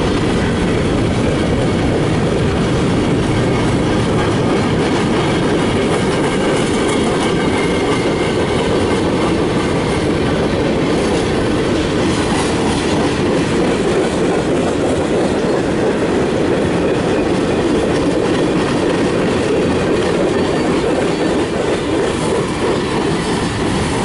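CSX freight train of tank cars, covered hoppers and boxcars rolling past close by: a steady, loud rumble of steel wheels on the rails.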